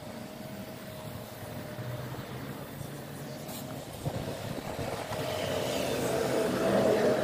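A steady motor hum with one fixed tone, growing louder over the last couple of seconds.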